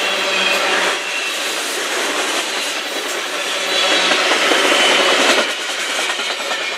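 Freight train tank cars rolling past at close range: a steady rumble and rattle of steel wheels on rail, growing louder about four seconds in and easing a little before the end.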